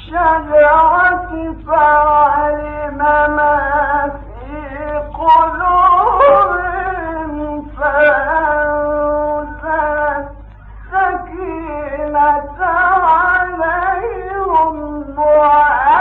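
A man reciting the Quran in a melodic, ornamented style, holding long notes with wavering pitch in phrases broken by short pauses. It is an old, muffled recording with a steady low hum beneath the voice.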